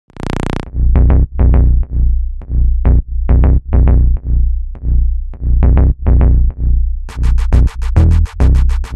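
Electronic background music: heavy bass notes pulsing on a steady beat about twice a second, with fast hi-hat-like ticks joining about seven seconds in.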